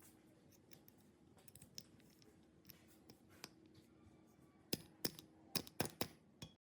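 Small hard parts clicking and tapping against each other, scattered light clicks at first, then a quick run of about six sharper, louder clicks near the end, over a faint steady hum.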